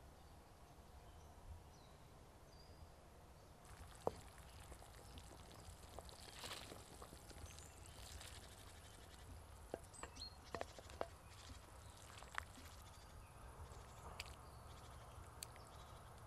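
Near silence: quiet outdoor ambience with a few faint, scattered clicks and ticks, the sharpest about four seconds in.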